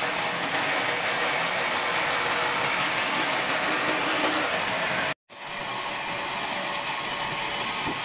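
Large band saw cutting lengthwise through a log: a steady, even rush of blade and motor noise. It cuts out abruptly for a split second about five seconds in, then picks up again.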